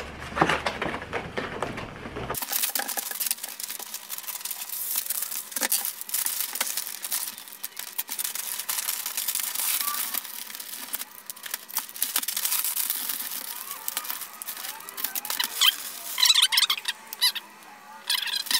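Christmas wrapping paper crinkling and rustling as a box is wrapped, with many small clicks and rips. Near the end come a few short, high squeaks, like tape being pulled off its roll.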